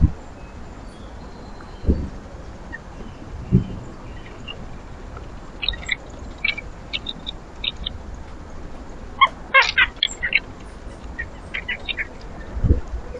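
Small backyard birds chirping at a feeder: scattered short, high chirps, with a quick run of notes about nine to ten seconds in. A few dull low thumps also sound, near the start and near the end.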